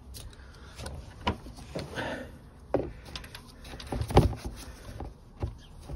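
Scattered clicks and knocks of a 17 mm socket being handled and fitted onto a motorcycle's oil drain bolt under the fairing, with some rustling; the loudest knock comes about four seconds in.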